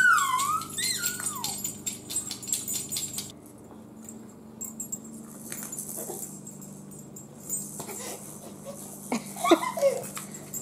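Clear plastic toy rattle balls shaken by hand, beads rattling quickly for the first three seconds or so, then stopping. High, gliding squeals sound over the rattling at the start and again briefly near the end.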